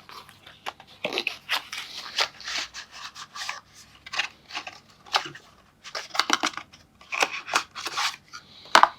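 Packaging and small board-game pieces being handled and unpacked by hand: a string of short, irregular crinkling, tearing and scraping sounds, with a sharper knock near the end.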